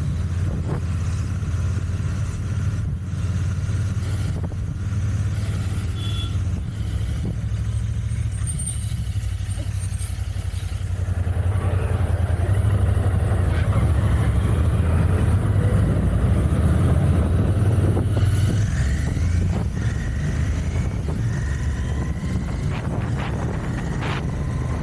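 Royal Enfield Continental GT 650's 648 cc parallel-twin engine running through its stock exhaust while riding, a steady low drone. It gets louder for several seconds in the middle, then settles back.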